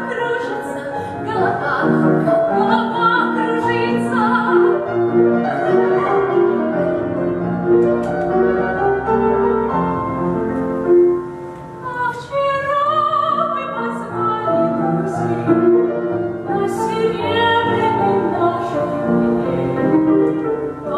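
A woman singing in operatic style to piano accompaniment, her voice wavering with a wide vibrato on held high notes around the middle of the passage and again later on.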